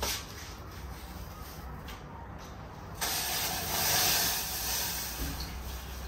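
Gas cooker burner turned on about halfway in, its flame hissing steadily.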